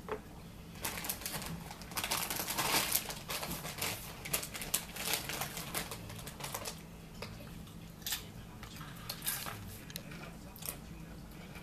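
Irregular crisp crackles and crunches of chips being eaten at the table, densest a couple of seconds in and thinning to scattered crackles after about seven seconds.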